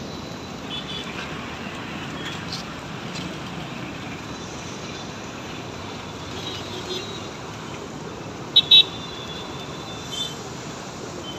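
Steady hum of city road traffic. About eight and a half seconds in, two short, loud, high-pitched toots.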